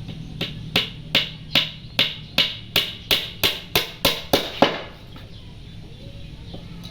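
A quick, even series of about a dozen sharp knocks, roughly three a second, like hammering or chopping, the last one loudest; they stop about two-thirds of the way through.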